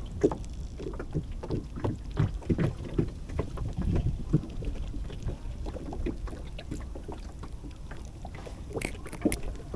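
Irregular small clicks and rustles of hands working a hook and line free of a freshly caught river prawn, over a low steady rumble.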